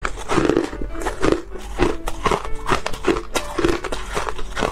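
Chewing and crunching a mouthful of hard frozen ice, crisp crunches about twice a second, over background music.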